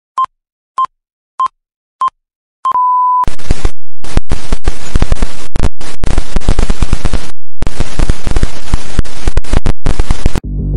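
Five short electronic countdown beeps about 0.6 s apart, then one longer held beep. They give way to a very loud burst of harsh digital static with brief cut-outs lasting about seven seconds, and music begins just before the end.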